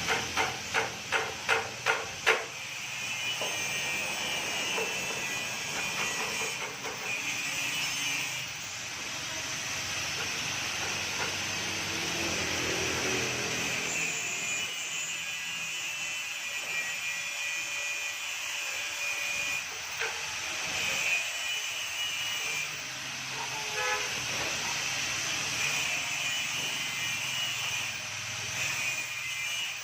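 About seven quick sharp knocks on metal, then a steady crackling hiss, typical of arc welding on steel bars.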